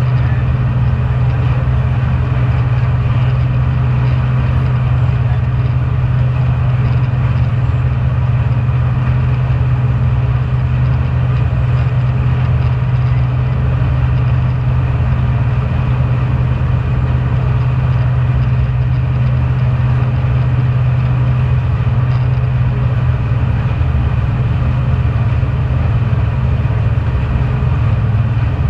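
Jet boat's engine running steadily at slow cruising speed: a deep, even drone with the rush of its churned wake behind it.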